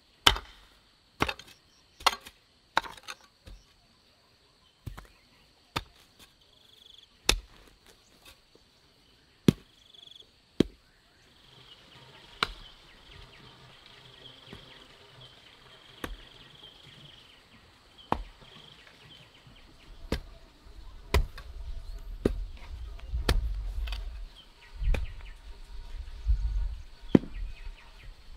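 Hand hoe chopping into soil, a run of sharp strikes spaced about a second or more apart, loudest in the first few seconds. About halfway through, a steady high insect buzz joins in, and near the end there is a low rumble.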